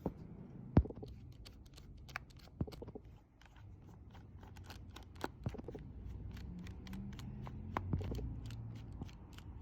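Handling noise: scattered light clicks and ticks of hard objects being moved and set down, with one sharp knock about a second in, over a low hum.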